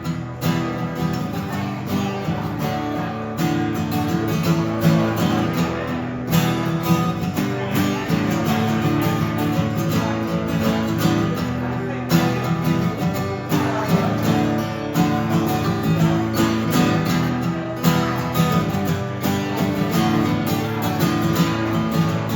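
Instrumental break in a live country song: acoustic guitar strumming steadily, with no singing.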